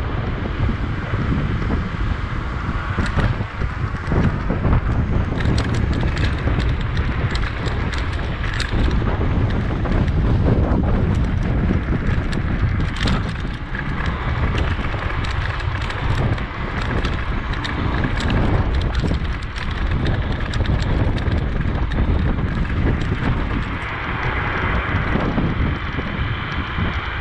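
Wind buffeting the microphone while riding a bicycle, a steady low rumble with many scattered clicks and rattles.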